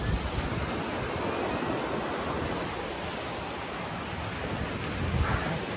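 Sea surf washing steadily on a beach, with wind buffeting the microphone.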